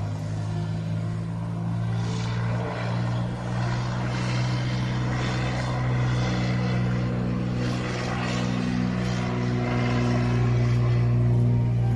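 Cessna 182T's six-cylinder piston engine and propeller running steadily, a drone that grows gradually louder.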